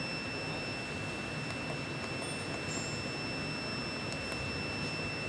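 Steady machine hum with a constant high-pitched whine, from a rotary screw air compressor installation, with a few faint clicks of controller keypad buttons being pressed.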